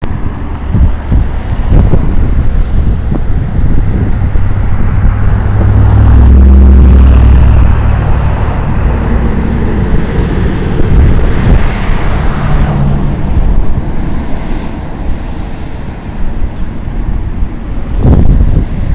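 Wind buffeting the microphone: a loud, gusty low rumble. A steadier low hum swells about six seconds in and fades by eight.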